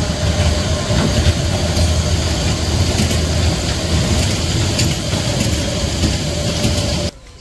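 Kiddie-ride train cars rolling along their track: a loud, steady rumble of wheels and motor with a faint steady whine. It cuts off suddenly near the end.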